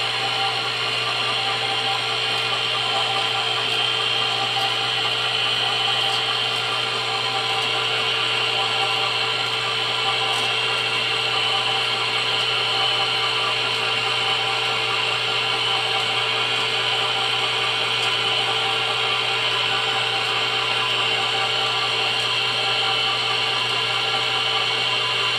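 A motor-driven machine running steadily: a constant mechanical drone with a high whine on top.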